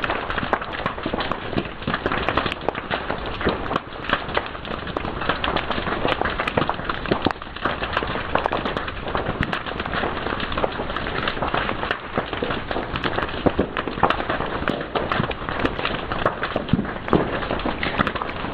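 Fire crackling, with many small sharp pops coming irregularly over a steady hiss.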